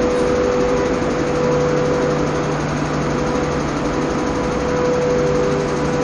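SS8 electric locomotive standing powered up, its equipment giving a steady drone with a constant mid-pitched whine.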